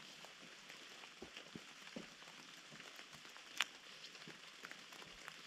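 Rain falling in forest: a faint steady hiss with scattered drops ticking, and one sharper tick about three and a half seconds in.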